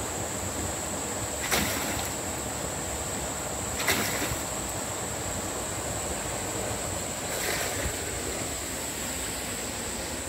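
Bunyip PA13 hydraulic ram pump cycling: three sharp knocks about two and a half seconds apart, the last one weaker, over steady rushing creek water. The pump is in self-regulating mode because its supply pipe isn't running full.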